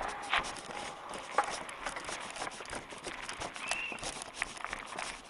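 Mountain bike rattling over a rough dirt path, picked up by a head-mounted camera: many irregular clicks and knocks over a steady hiss, with one short squeak a little after halfway.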